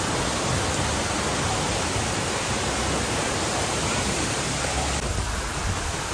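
Steady rushing of a waterfall and stream tumbling through a rock gorge.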